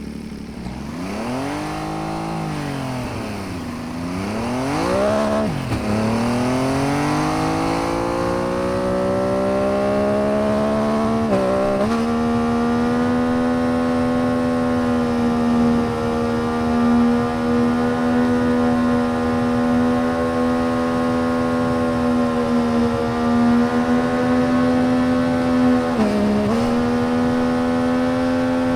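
MV Agusta 800 RR's 800 cc inline three-cylinder engine revving up and down a couple of times, then climbing and holding at high, steady revs, with a brief drop in pitch about eleven seconds in and again near the end.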